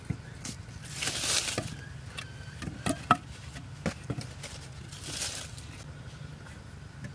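Hands scraping and brushing loose dirt across an earth floor: two longer swishes, about a second in and about five seconds in, among scattered small taps and knocks.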